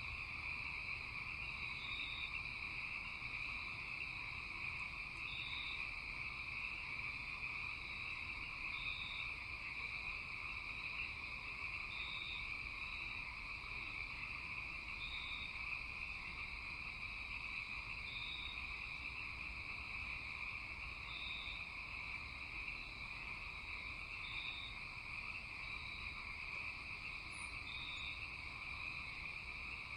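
Steady night-time chorus of frogs and insects, with a short high note repeating about every three seconds.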